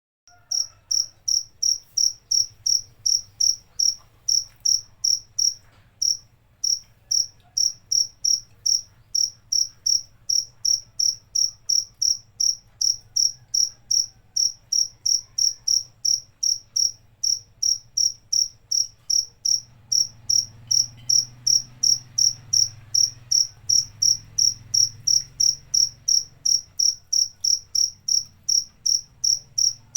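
Cricket chirping steadily, about three high, sharp chirps a second, with a brief pause around six seconds in.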